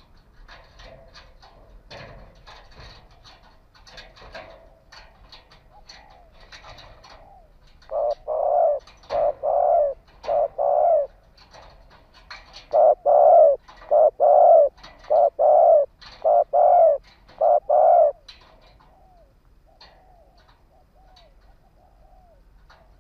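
Spotted dove cooing: after some faint clicks and chirps, it gives two runs of loud, rounded coo notes, the first about eight seconds in and the second, longer one about thirteen seconds in. A few soft short falling calls follow near the end.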